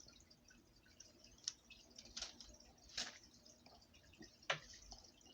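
Faint, scattered drips and light clicks of water, a few seconds apart, over quiet room tone.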